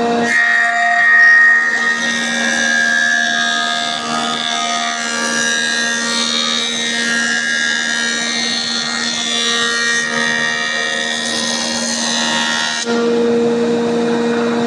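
Jointer-planer cutterhead cutting into a glued-up wooden board as it is fed across. The cut starts about a third of a second in and ends about 13 seconds in, after which the machine runs free with a steady hum.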